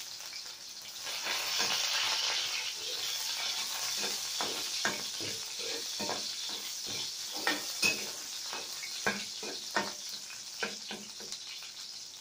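Garlic sizzling in hot oil in a metal wok, stirred with a metal spatula that scrapes and clicks against the pan; the spatula strokes come thick and fast through the second half.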